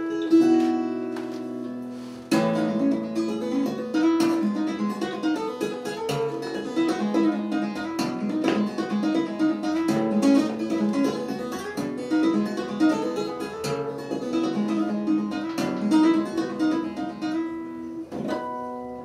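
Solo flat-top steel-string acoustic guitar played fingerstyle: an instrumental of picked notes and chords left to ring.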